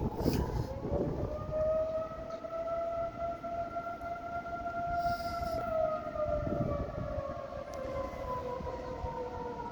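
Outdoor warning siren sounding a steady wail for a scheduled test, its pitch drifting slowly up over the first couple of seconds and sinking again near the end, over a low rumble of noise.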